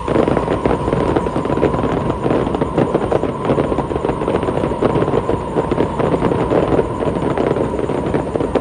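Fireworks going off in a dense, continuous crackling barrage of rapid pops that starts suddenly.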